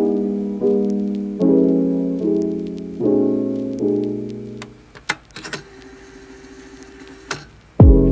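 Background piano music: chords struck about every three-quarters of a second and left to ring. It drops away after about five seconds, leaving faint scratchy noise and a few clicks, then comes back with a loud, deep chord near the end.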